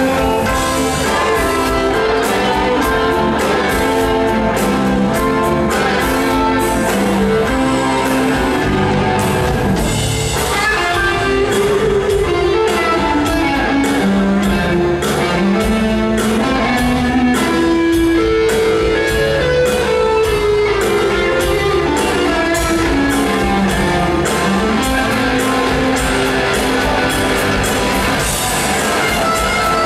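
Live rock band playing, with electric guitar to the fore over drum kit, bass and keyboards.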